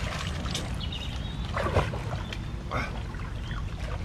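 Water splashing and sloshing around a capsized inflatable kayak as a swimmer moves beside it in the water, in several short splashes about a second apart over a steady low rumble.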